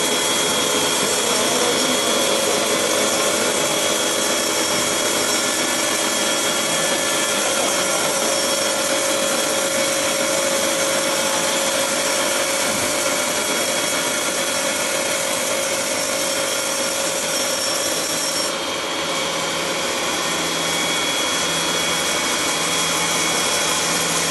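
MTK horizontal band sawmill running and sawing through wood, a steady, continuous noise with a faint whine in it; the high part of the sound shifts slightly about 18 seconds in.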